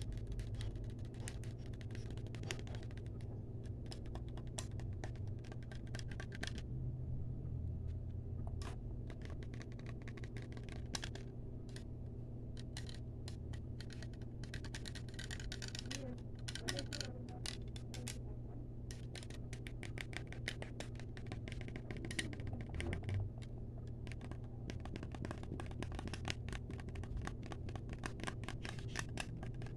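Fast ASMR tapping: dense, rapid clicks with short pauses, like quick typing.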